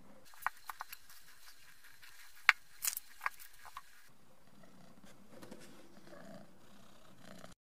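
A bare forged-steel axe head handled on sheets of paper over a table: a few sharp clicks and knocks in the first four seconds, the loudest about two and a half seconds in, then softer rustling and shuffling that cuts off suddenly near the end.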